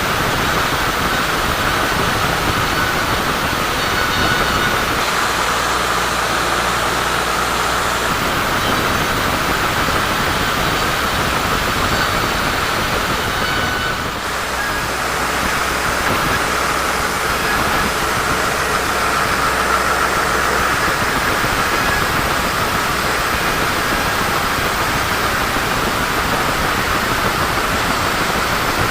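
Sawmill saw running steadily through a teak log, a continuous loud whirring noise with a brief dip about halfway through.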